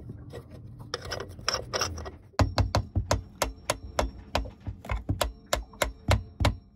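Handling and rubbing on the metal secondary fuel filter housing of a Yanmar 3GM30F marine diesel, then a screwdriver tapping on it, a run of sharp taps at about four a second from a couple of seconds in.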